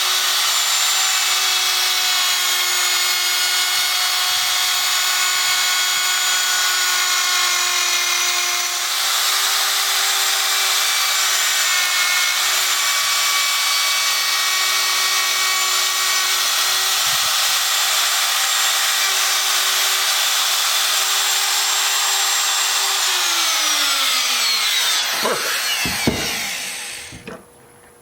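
Power tool motor running at a steady whine as a wood-cutting bit machines a 6061 aluminum plate, with a hiss of cutting noise. About 23 seconds in it is switched off and winds down, its pitch falling until it stops near the end.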